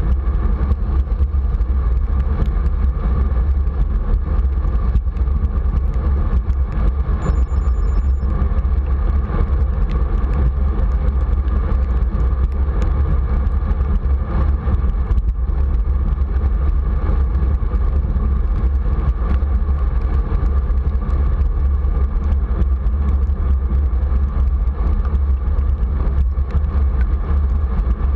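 Steady deep wind rumble on the camera microphone with the hiss of bicycle tyres rolling on wet asphalt, the bike moving along at a constant pace.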